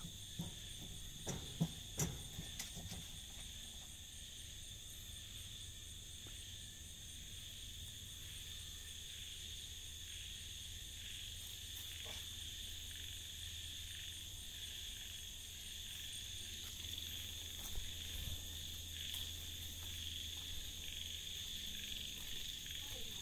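Night chorus of crickets and frogs: a steady, high-pitched trilling that runs on without a break, with a few sharp knocks in the first three seconds.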